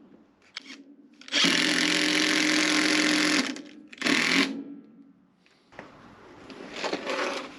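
Power drill driving a screw through an oak packer into a plugged wall, running steadily for about two seconds, then a short second burst. Softer scraping noises follow near the end.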